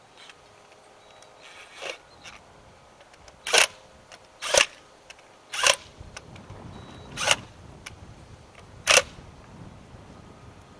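A series of five sharp clicks or knocks, spaced one to one and a half seconds apart, after a fainter one.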